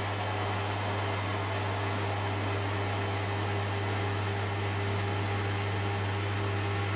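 Metal lathe running steadily while a carbide tool takes a facing cut across the end of a cast iron piston blank, a low steady motor hum under the even noise of the cut.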